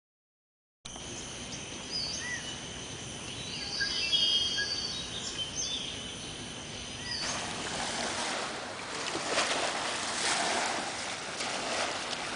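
Outdoor ambience: bird chirps over a steady high-pitched insect drone, giving way about seven seconds in to a louder, even rush of noise.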